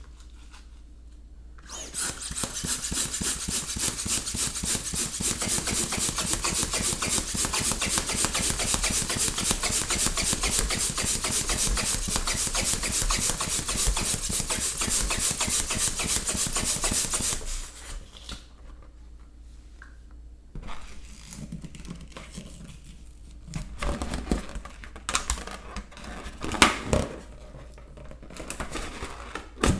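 A pump inflating a balloon: a steady, rhythmic rush of air for about fifteen seconds that stops abruptly. Quieter scattered rubbing and clicking sounds follow.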